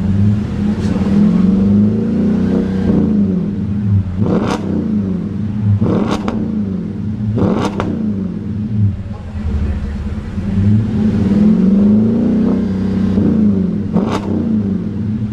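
Audi A8 (D4) 4.2-litre V8 revving through an aftermarket HE'ART exhaust, the revs climbing and falling in slow sweeps, with a few short sharp stabs of the throttle in the middle and one near the end.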